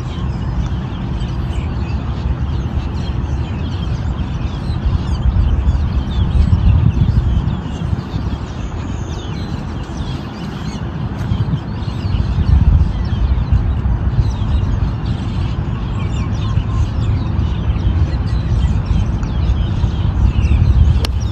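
Birds chirping faintly and often, over a steady low rumble that swells and fades.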